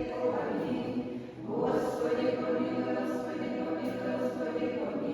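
Church choir singing an Orthodox liturgical chant in long held phrases, breaking off briefly about a second and a half in.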